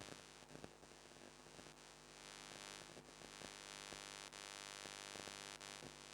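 Near silence: faint steady hiss and low hum of the recording, with a few faint ticks.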